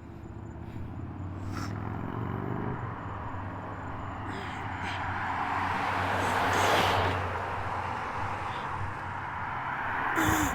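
Road traffic: a steady engine hum, and a car passing with its tyre and engine noise swelling to a peak about two-thirds of the way through, then fading.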